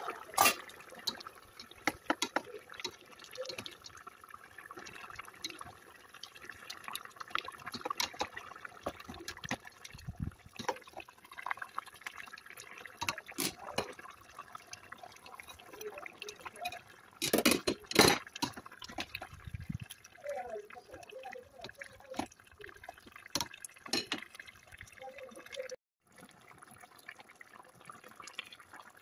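Pot of chicken stew in tomato sauce simmering on a stove: liquid bubbling with a steady patter of small pops and clicks. A few louder knocks stand out, the loudest a cluster about two-thirds of the way through.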